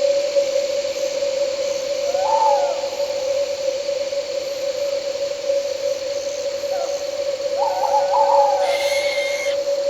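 An owl hooting, a short rising-and-falling call about two seconds in and a longer wavering call near the end, over a steady chorus of crickets and night insects with a continuous drone.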